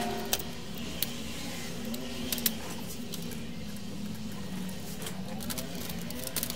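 Scattered sharp clicks and knocks of a CD player's plastic case and parts being handled, a few single ones early and a cluster near the end, over a steady low hum.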